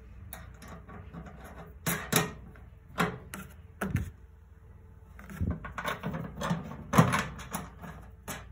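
Bolts and nuts being fitted by hand into a bracket on a black metal box: irregular clicks and knocks of metal parts against the box and bracket.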